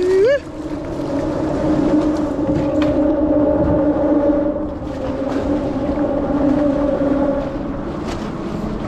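Steady two-pitched hum of traffic crossing the bridge overhead, fading out about seven seconds in.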